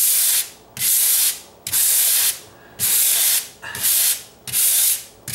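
Sandpaper on a hand sanding pad being rubbed back and forth over dried drywall joint compound, a hiss that comes in about six strokes, roughly one a second.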